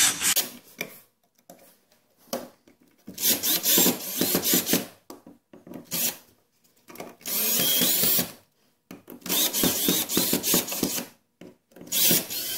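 Drill/driver driving the outlet's mounting screws into the electrical box, in about five short runs of one to two seconds each with pauses between.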